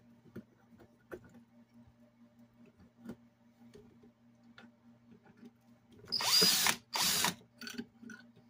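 DeWalt cordless drill backing out a light-fixture mounting screw with a square-drive bit, in two short runs about six and seven seconds in, the first rising in pitch as the motor spins up. Light handling clicks come before.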